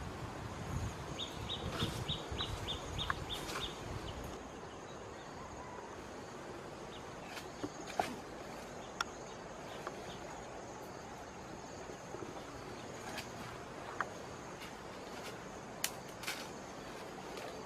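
Forest ambience with a steady, faint, high insect drone. About a second in comes a quick run of roughly ten high chirps, a bird or insect call. Low rustling and handling noise fills the first few seconds, then scattered sharp clicks and snaps.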